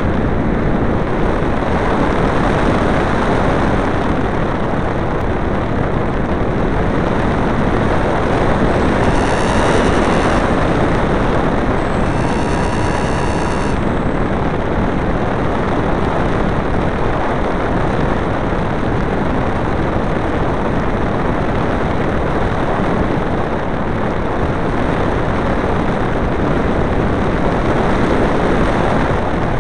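Steady loud rush of wind and propeller noise picked up by a camera mounted on a flying RC plane. A thin high whine comes in twice, briefly, about a third of the way through.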